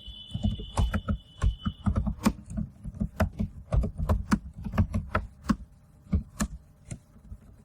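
Typing on a computer keyboard: a run of uneven keystrokes, a few a second, that stops shortly before the end. A faint steady high tone sounds under the first two seconds.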